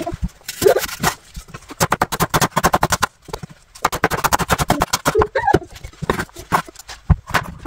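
Kitchen knife chopping vegetables fast on a cutting board, about ten strokes a second, in runs of a second or so with short pauses between.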